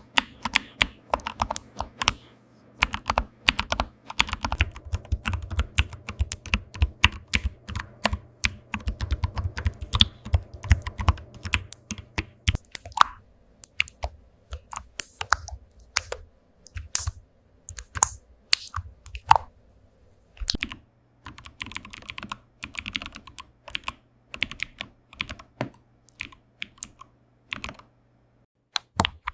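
Typing on a computer keyboard: rapid, irregular clicking keystrokes in quick runs, with a low steady hum under the first part. The keys stop briefly near the end.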